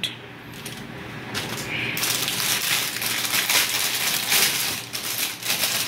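Clear plastic clothing bags crinkling and rustling as they are handled, starting about two seconds in and going on in a busy run of crackles.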